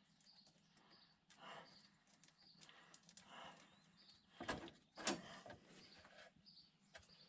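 Near silence with two short knocks about half a second apart, a little past the middle.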